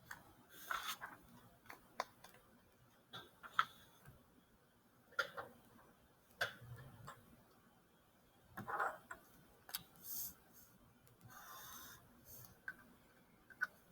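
Faint, irregular clicks and a few short rustling handling noises, about a dozen in all, with no steady rhythm.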